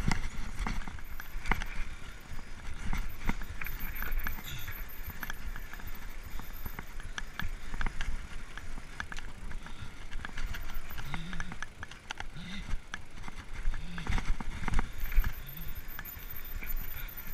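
Mountain bike ridden fast down rough dirt singletrack: a continuous rattle of the bike over the bumpy trail with many sharp knocks and clicks, over a low rumble of tyres on dirt.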